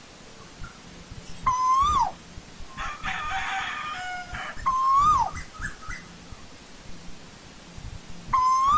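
Asian koel calling: three loud whistled notes about three seconds apart, each rising slightly and then dropping sharply. A softer harsh chatter is heard between the first two notes.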